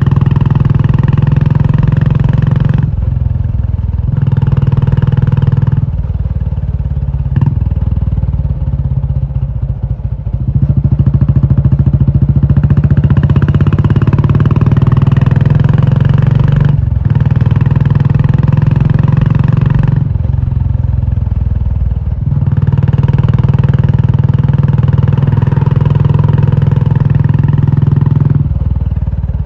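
Royal Enfield Classic 350's single-cylinder engine running loud through an aftermarket Indore exhaust. Its note swells and drops back several times, with a sharp click about seven seconds in.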